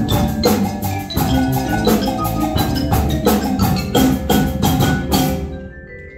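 Percussion ensemble playing, with marimbas and other mallet instruments over a steady beat of drum strokes. About five seconds in the drums stop, leaving quieter ringing mallet notes.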